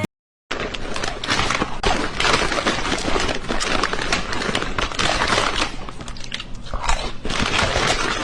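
Dense crunching and crackling, with many small clicks and rustles close together, starting after a brief gap and cut off suddenly near the end.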